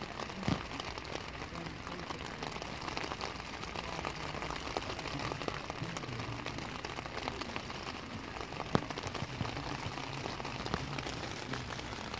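Rain falling on a tent, heard from inside: a steady hiss of many small drops on the fabric, with now and then a single louder drop.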